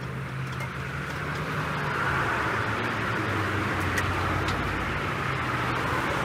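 Street traffic with a motor vehicle engine running close by. A steady low hum and road noise build over the first two seconds and then hold.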